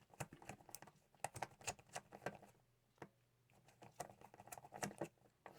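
Faint, irregular small metal clicks and ticks of lock picking tools working in the keyway of a small pin-tumbler challenge lock, with a pause of about a second midway.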